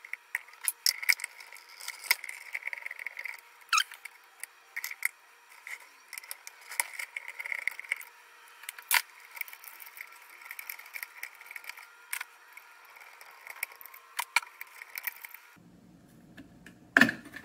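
Irregular small metallic clicks, ticks and scrapes of needle-nose pliers and wire connectors being worked off the spade terminals of the water boiler's control board, with one brief squeak about four seconds in.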